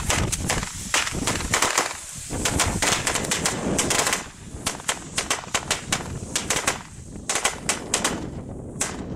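Comet F2 firecracker string going off: a rapid, irregular run of sharp bangs. It thins briefly about four seconds in, picks up again, and ends with a few last cracks near the end.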